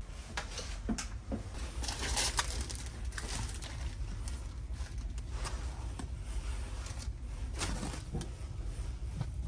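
Thin plastic packaging rustling and crinkling as wrapped amenity packs are handled on a closet shelf, with a few light clicks and knocks, over a steady low hum.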